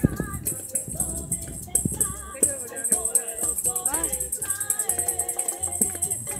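Informal group singing of a praise song to a steady rhythm of shaken maracas, with hand clapping.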